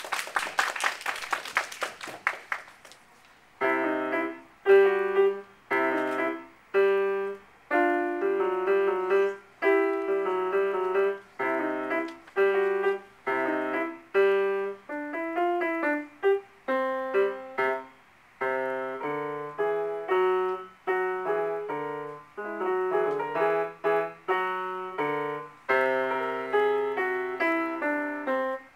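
A short piano piece, played as a simple melody over low accompanying notes in short phrases with brief pauses between them. It is preceded by about three seconds of clapping at the start.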